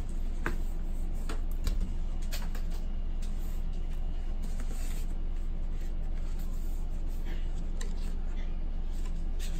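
Faint taps and rustles of a rigid cardboard gift box lid being lifted and a paper card being handled, with a bump about two seconds in, over a steady low hum.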